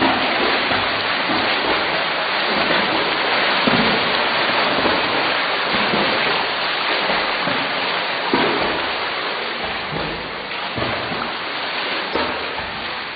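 Pool water splashing and churning continuously as swimmers kick and stroke through it, with a few sharper splashes now and then.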